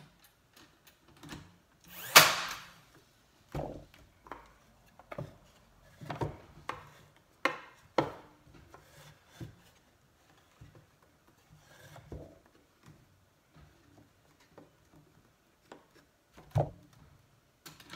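A battery-powered brad nailer fires once about two seconds in, a short sharp shot into a wooden frame corner. Scattered knocks and taps follow as the nailer is set down and the wooden frame is handled on the table.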